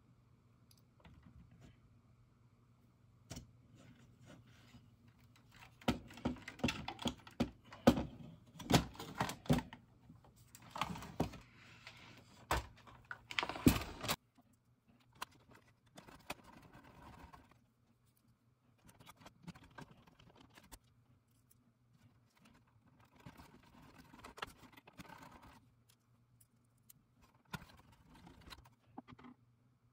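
Hands handling an opened cassette deck's chassis, circuit boards and wiring: a run of clicks, knocks and rattles of plastic and metal parts, densest and loudest in the middle, then sparser light clicking toward the end.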